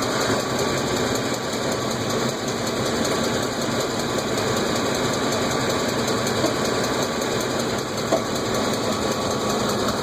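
2006 Ford F-150 engine running steadily with a rapid, regular ticking noise of unknown cause.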